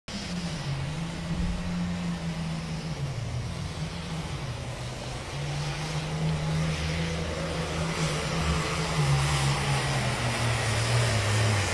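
Modified International Harvester pulling tractor's diesel engine running hard under load, pulling the weight sled. It grows gradually louder, and its note drops a little near the end.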